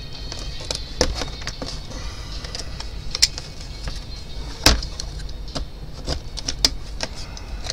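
Box cutter blade cutting and scraping at the edge of a hard plastic console panel, giving irregular sharp clicks and snaps as small bits are trimmed off and the panel is handled. The loudest snap comes a bit under five seconds in.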